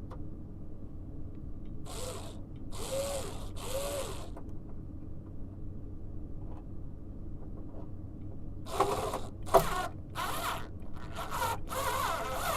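Screws being driven in short ratcheting bursts while a replacement VAV heat modulating board is fastened in place. Three bursts come about two seconds in, then a quicker run of bursts near the end with one sharp click, over a steady low hum.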